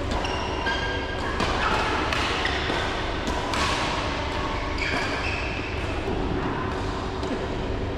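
Badminton rally: racquets striking a shuttlecock back and forth, with the short high squeaks of shoes on the synthetic court mat, in a large reverberant hall.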